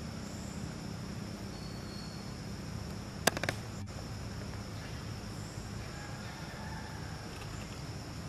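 Outdoor ambience: a steady low rumble under a faint, even high-pitched insect drone. A quick cluster of sharp clicks about three seconds in is the loudest sound.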